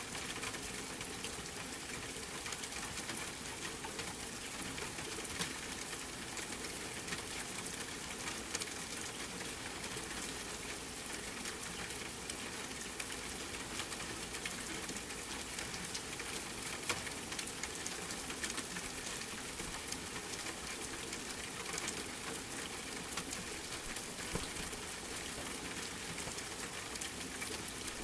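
Steady rain mixed with a crackling wood fire: an even, constant hiss with frequent small, sharp crackles scattered through it.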